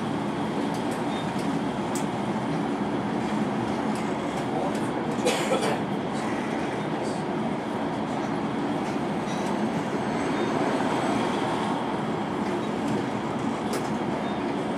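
Passenger train running at speed, heard from inside the carriage: a steady rumble of wheels and running gear, with a brief louder noise about five seconds in.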